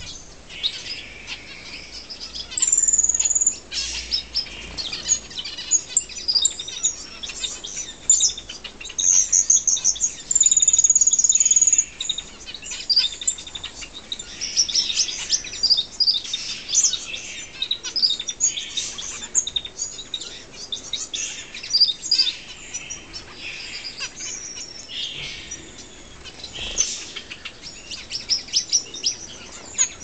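A mixed flock of small exotic aviary finches, among them Gouldian finches, parrotfinches and zebra finches, chirping and calling continuously in rapid high twitters. A few longer, steady high whistled notes stand out, one about three seconds in and another lasting over a second near the middle.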